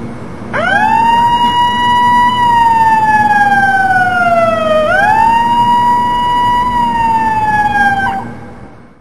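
Fanon MV6S megaphone's built-in siren, heard from about 100 metres away: a wailing tone that sweeps quickly up, holds, then slides slowly down, twice over, and cuts off about a second before the end.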